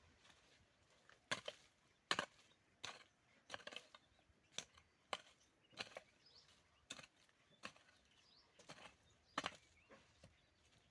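A series of short, sharp knocks or strikes, a dozen or so, coming irregularly at about one a second.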